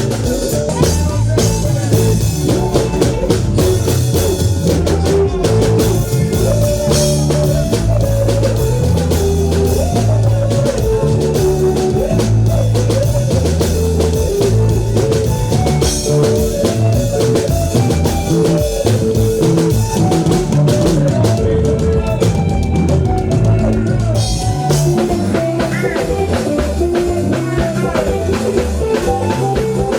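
Live band music: electric guitar over bass and a drum kit playing a steady beat.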